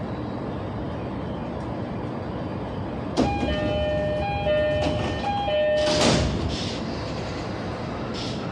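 Commuter train standing at a platform with its steady equipment hum; about three seconds in a click and then a two-note door chime alternating high and low, and about six seconds in a loud rush as the sliding doors close.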